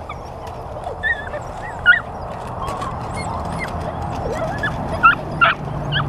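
Young Dutch Shepherd puppies yipping and whining in short, wavering, high-pitched squeals. The loudest come a little under two seconds in and twice around five seconds in.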